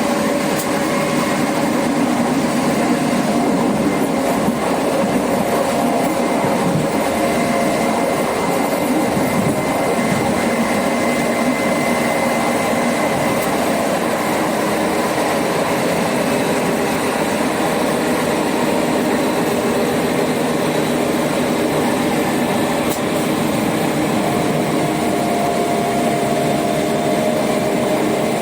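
Renfe Series 446 electric multiple unit heard from inside the carriage while running: steady traction-motor whine made of several held tones over a continuous rumble, with another tone joining near the end.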